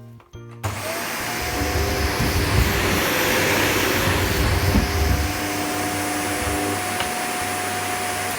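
Shark Anti Hair Wrap corded upright vacuum switched on about half a second in and running in hard-floor mode, a steady motor whine over rushing air, louder over the first few seconds. Right at the end the whine starts to fall as the motor is switched off and spins down.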